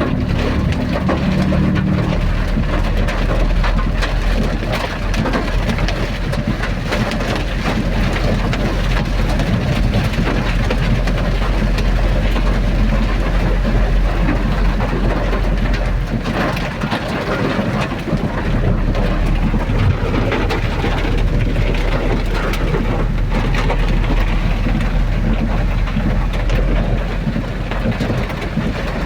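Rain together with the running noise of a travelling vehicle: a steady rushing with a deep low rumble underneath.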